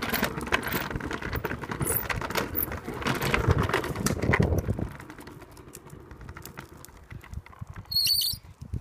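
Plastic wheels of a Razor RipRider rolling over pavement with a dense rattle, easing off about five seconds in to a quieter crackle. A brief high squeak comes near the end.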